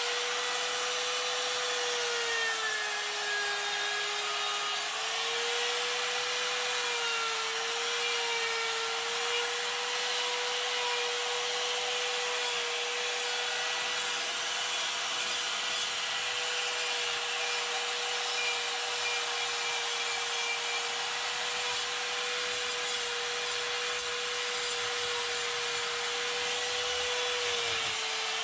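Electric die grinder running with a coarse half-inch Saburrtooth flame burr, grinding and shaping wood with a steady high whine over a rasping noise. The motor's pitch sags a few times as the burr bites harder into the wood, dropping for a couple of seconds early on and briefly near the end.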